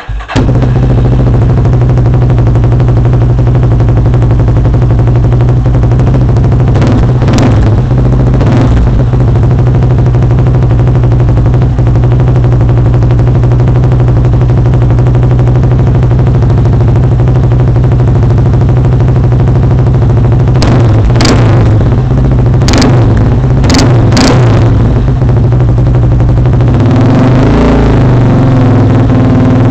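2000 Yamaha Warrior 350's air-cooled single-cylinder four-stroke engine running loud through an HMF aftermarket exhaust, idling steadily with quick throttle blips: two about seven seconds in, a rapid series of about five a little past twenty seconds, and a longer rev near the end.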